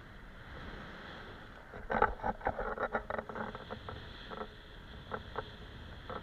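Skis sliding over snow with a steady hiss. About two seconds in comes a quick run of sharp clatters and knocks, thinning out to a few scattered ones near the end.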